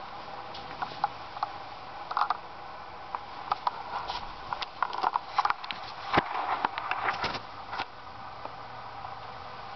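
Electric scooter conversion motor, mounted on the scooter's transmission, running with a steady hum under a scatter of sharp clicks and crackles that are thickest from about two to eight seconds in.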